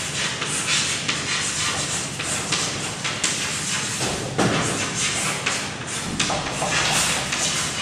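Chalk writing on a chalkboard: a quick, irregular run of short scratchy strokes and taps.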